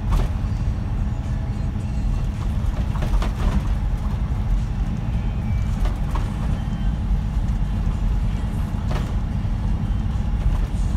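Scania K124 coach's straight-six diesel engine and road noise heard from inside the passenger cabin: a steady low rumble. A few sharp knocks and rattles come through, near the start, around three seconds, around six and around nine seconds in.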